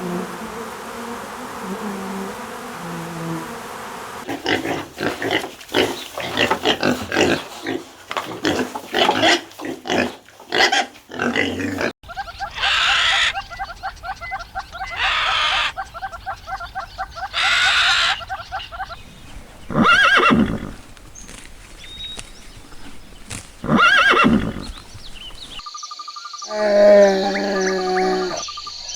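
A series of farm animal calls, loud and changing from one animal to another through the stretch, with several strong drawn-out calls spread across it.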